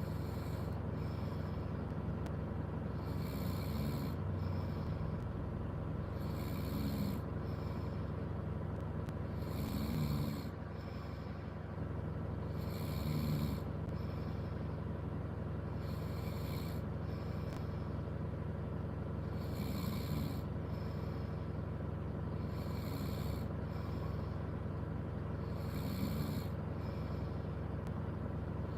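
A person snoring while asleep inside a car, about one snore every three seconds, over a steady low hum.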